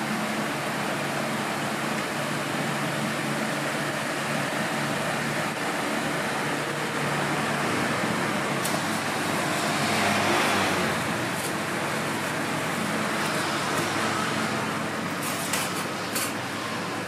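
Steady hiss and low hum of a running electric desk fan and the waffle stall around it. The noise swells briefly about ten seconds in, and there are a few light clinks near the end.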